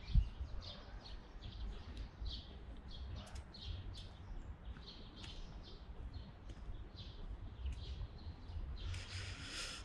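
Small songbirds chirping in many short, separate high notes, with a low rumble underneath.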